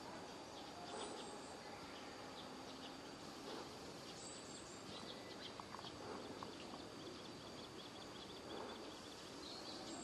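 Quiet outdoor park ambience: a steady hiss with a thin, steady high tone, and scattered faint, short bird chirps with a few small ticks around the middle.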